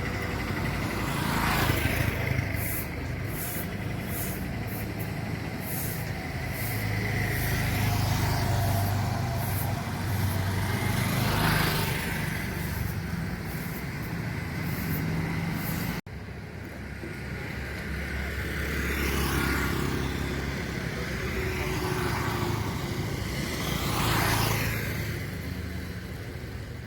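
Vehicles passing one after another, each a whoosh that swells and fades over a steady low engine rumble. The sound changes abruptly about two-thirds of the way through.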